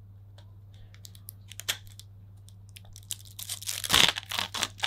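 Clear plastic packaging of an UltraFit USB thumb drive crinkling as it is worked open by hand: a few crackles about a second and a half in, then a dense run of crinkling in the last second and a half.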